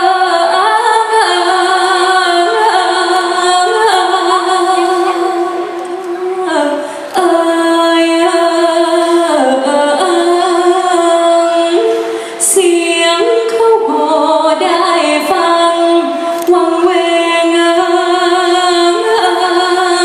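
A woman singing a Thai song solo into a microphone, without accompaniment, holding long notes with a quavering ornamental wobble (luk khor). She pauses briefly between phrases about six and twelve seconds in.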